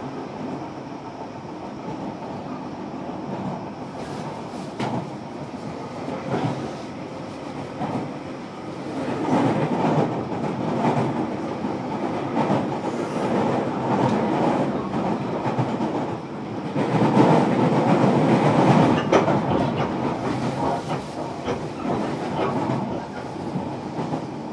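Onboard running noise inside motor car MoHa 305-105 of a JR Kyushu 305 series electric train travelling between stations: a steady rumble of wheels on rail with clicks over the rail joints. It grows louder about nine seconds in and again around seventeen seconds.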